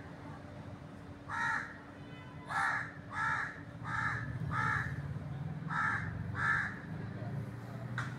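A crow cawing repeatedly: seven short caws, most of them in quick pairs, over a steady low background hum.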